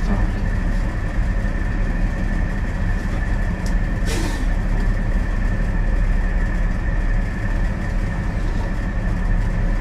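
Steady low machine hum with a thin, constant whine above it, and one short sharp noise about four seconds in.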